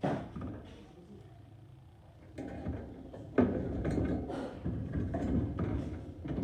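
Knocks, rattling and scraping of objects being handled and set in place, with a sharp knock at the start and another about three and a half seconds in.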